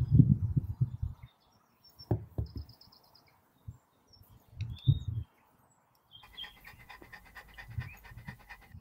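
Golden retriever panting quickly in the last few seconds, preceded by a few short, low, muffled bumps, the loudest at the start. Birds chirp briefly.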